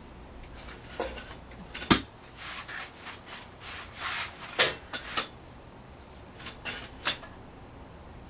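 Handling noise from a bent sheet-metal plate held against a wall: short rubs and scrapes with several sharp clicks, the loudest about two seconds in.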